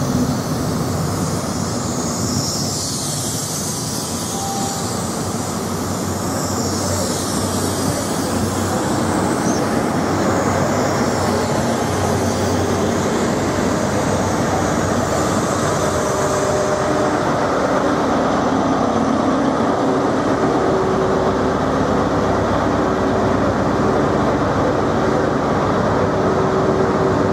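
Class 43 HST diesel power cars running. First a train pulls out with a steady engine note, wheel and rail noise and a high rushing hiss. Later the steady hum of HST power cars sits at the platforms.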